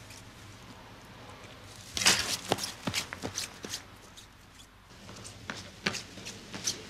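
Footsteps crunching through dry brush and twigs, with crackling and snapping: a dense burst about two seconds in, then scattered steps near the end.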